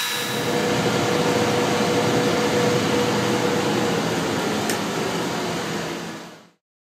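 Shoe repair finishing machine running with a shoe heel held against its spinning wheel: a steady whirring grind with a faint steady tone. It fades out near the end.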